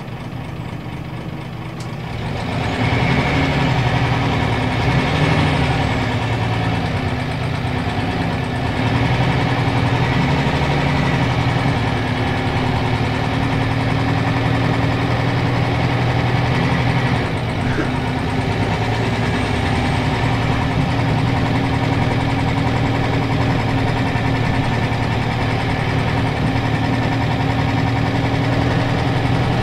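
Scania L94UB city bus engine heard from inside the cabin. It grows louder about two seconds in as the bus moves off, then runs under load with a few dips in pitch as the ZF automatic gearbox changes gear, and settles into a steady run.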